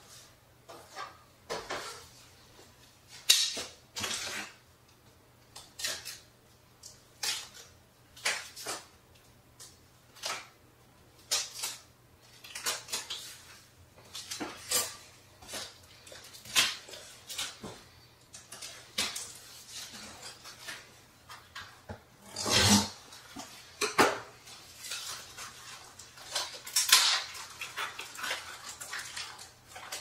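Cardboard and plastic packaging being handled: an irregular run of short rustles, scrapes and knocks as a turntable mat is slid out of its cardboard sleeve and the box is worked through.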